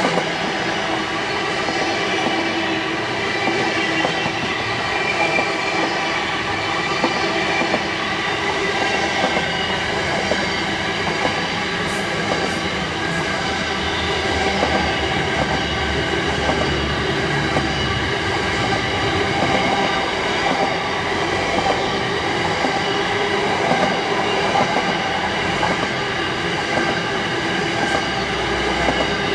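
A train rolling past continuously, with steady wheel squeal and a few sharp rail clicks about twelve seconds in.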